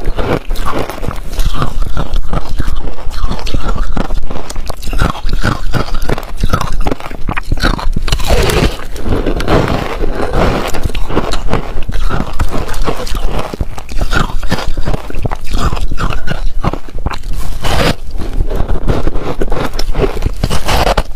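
Loud crunching and chewing of ice coated in passion fruit pulp: a dense, continuous crackle of small cracks as the ice breaks between the teeth.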